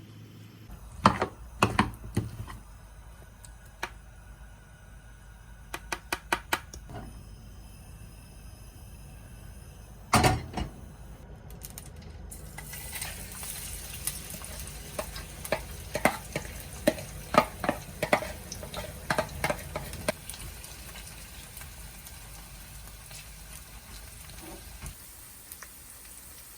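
Kitchen utensils clicking and knocking against a bowl and pan, one heavy knock about ten seconds in. Then oil starts sizzling in a frying pan about halfway through as the shredded potato pancake cooks, with a run of utensil taps over the sizzle.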